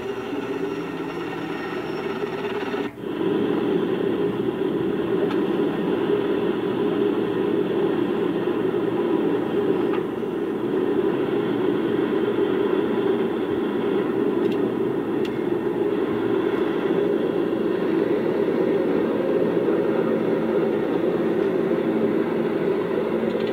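Steady engine drone heard from inside an aircraft cockpit in flight, played through a computer speaker and re-recorded. A quieter steady rumble fills the first three seconds, then a brief drop-out, then the louder drone holds.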